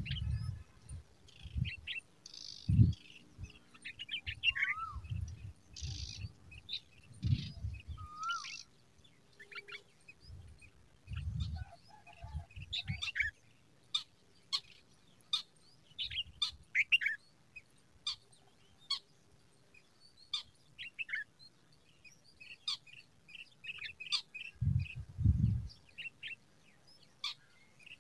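White-eared bulbuls chirping at the nest: many short, high chirps, with two rising whistled notes in the first ten seconds. Low dull thumps come now and then, the loudest about three seconds in and again near the end.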